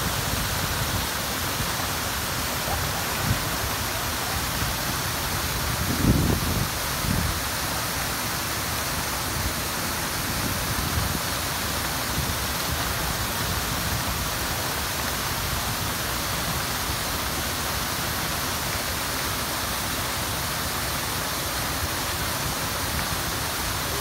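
Waterfall pouring over a rock ledge into a gorge: a steady, even rush of falling water. A brief low thump stands out about six seconds in.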